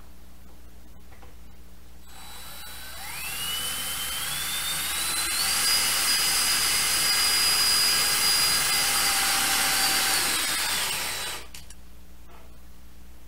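Cordless drill working into a plywood floor: its motor whine rises in steps as the trigger is squeezed, holds at a high steady pitch for about five seconds, then falls away and stops.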